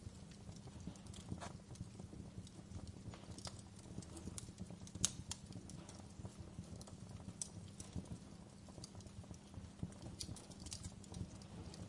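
Wood fire crackling: irregular sharp cracks over a low steady rumble, the loudest crack about five seconds in.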